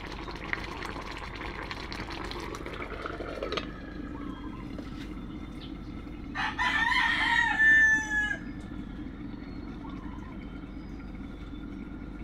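A rooster crows once, about six seconds in: a single call of about two seconds, dropping in pitch at the end, and the loudest sound here. A low steady hum runs underneath.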